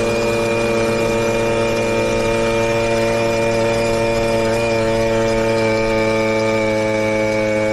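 Puch moped's small two-stroke single-cylinder engine running at steady speed while riding, heard close up from the moped itself as a steady buzzing drone. Its pitch eases slightly down near the end.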